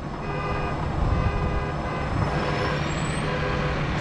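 Crane's diesel engine running and building up as the lift begins, with a warning beeper sounding about once a second.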